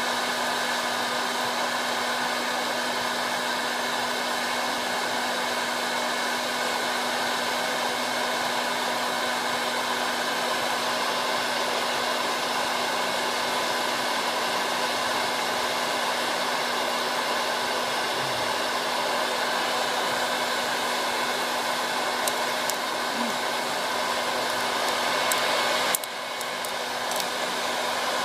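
Hot-air popcorn maker running, its fan blowing a steady whirr with a low hum under it, like a hair dryer. A few faint clicks come near the end.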